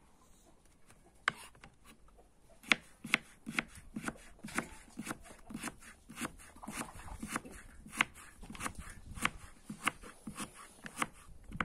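Kitchen knife chopping carrot slices into thin strips on a wooden cutting board. A quick, irregular run of sharp knocks starts about a second in.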